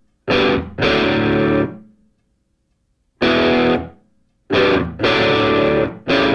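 Background rock music: distorted guitar chords hit in stop-start bursts, with sudden cut-offs into silence between them.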